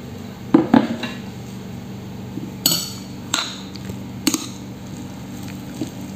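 Metal spoon clinking and scraping against a plate as a shredded-cabbage and carrot mayonnaise filling is stirred, with a handful of sharp clinks at irregular intervals.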